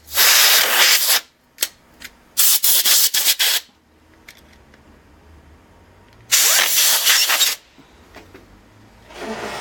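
Can of compressed air blasting into a laptop heatsink to blow the dust out. Three main hissing bursts of about a second each, the middle one choppy, with a couple of short puffs between them.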